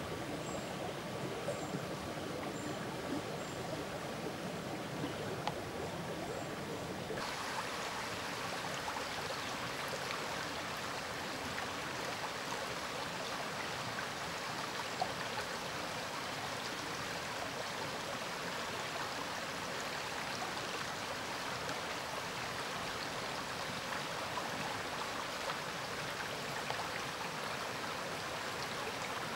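Steady rushing of a woodland stream, an even wash of water noise. About seven seconds in, it abruptly becomes brighter and hissier. Before that, a few faint high-pitched chirps sound over it.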